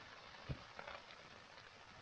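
Faint rain pattering on the tent fabric, with a single thump about half a second in.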